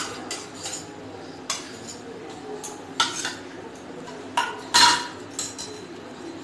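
Metal spoon scraping and clinking against a stainless-steel mesh strainer and the steel bowl beneath it, pressing ground mustard paste through the mesh. Irregular clinks and scrapes, the loudest a little before five seconds in.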